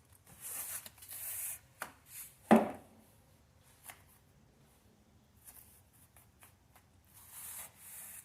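Carpet rustling and scraping as it is trimmed with scissors and pressed into place, in short bursts, with one sharp knock about two and a half seconds in and a few small clicks.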